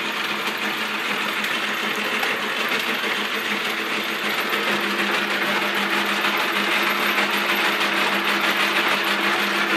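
Davis Machine Company 14-inch metal lathe running steadily under power, its gears and lead screw turning with a fast, even mechanical clatter over a steady hum.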